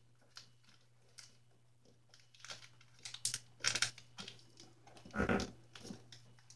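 Origami paper rustling and crinkling as it is folded and creased by hand, in short scattered crackles, the loudest about three and a half and five seconds in. A faint steady low hum runs underneath.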